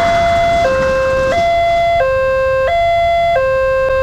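Electronic level-crossing warning alarm from the crossing signal's loudspeaker, sounding two alternating tones, low then high, each about two-thirds of a second long. It warns that a train is at the crossing. The noise of the passing train fades out under the first second.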